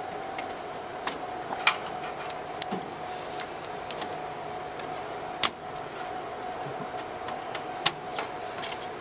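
Scattered clicks and light clatter of plastic power-supply connectors and wire bundles being handled and pushed onto a server system board. A few sharper clicks stand out, the clearest about two seconds and five and a half seconds in, over a steady faint hum.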